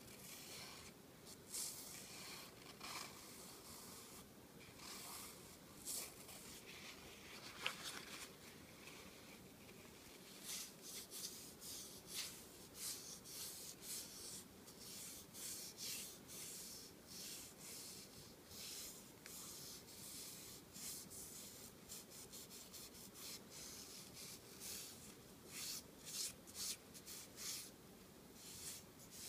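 Paper towel rubbing oil into a wooden spoon, faint scratchy strokes back and forth along the wood. The strokes come sparsely at first and become quicker and more regular about a third of the way in.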